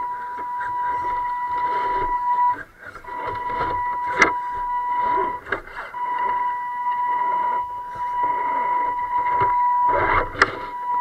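Electric drive whine from an RC rock crawler's motor and speed controller: a steady high-pitched tone that cuts out briefly twice as the throttle is let off. It is broken by a few sharp clicks and knocks of plastic and tyres on rock.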